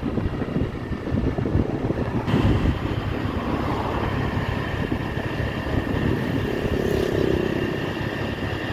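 Small motorbike riding along at road speed, heard from the rider's seat with heavy wind rumble on the microphone and a steady high whine above it.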